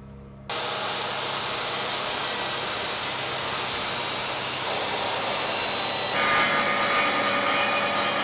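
DeWalt track saw cutting a sheet of plywood: a loud, steady whir that starts abruptly about half a second in and turns sharper and more tonal about six seconds in.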